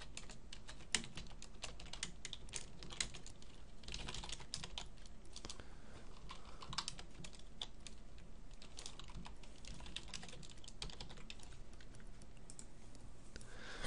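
Typing on a computer keyboard: irregular keystroke clicks in quick runs with short pauses between them.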